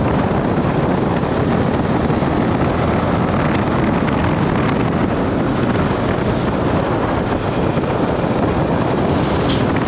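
Steady wind rush on the microphone of a moving motorcycle, a Yamaha R15 M cruising at about 50 km/h, with its engine running underneath.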